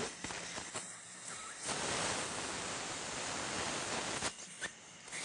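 Dental suction hissing steadily for about two and a half seconds, starting about a second and a half in and cutting off suddenly, with a few faint clicks of metal instruments before it.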